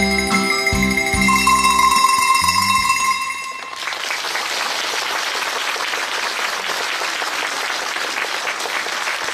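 A tuned cowbell ensemble plays the closing notes of a piece over a low accompaniment, the last ringing chord cutting off after about three and a half seconds. Audience applause follows and runs steadily.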